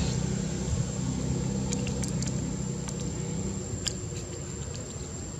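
A motor vehicle's engine running with a steady low hum that slowly fades away, with a few faint clicks over it.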